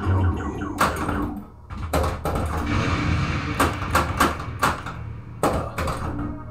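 Stern Lightning (1981) pinball machine in play: a run of sharp, irregular clacks as the ball strikes scoring targets and the flippers and solenoids fire, over the game's synthesized music and sound effects.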